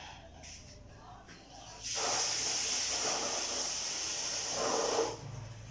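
Water running from a tap for about three seconds, starting and stopping abruptly, as food is rinsed before cooking.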